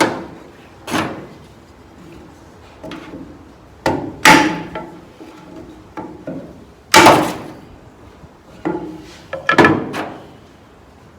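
A series of sharp knocks and clanks on an aluminum canoe seat frame as old webbing clips and hooks are worked out of its channel, the loudest about four and seven seconds in and a quick cluster near the end.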